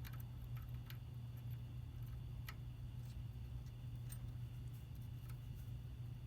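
Scattered light clicks and taps at irregular spacing from the small metal parts of a motorcycle rear set and shift linkage being handled and fitted, over a steady low hum.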